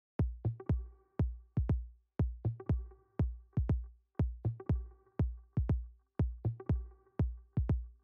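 Background music: an electronic track with a deep kick drum beating in a repeating pattern, about three beats a second, over a held synth chord.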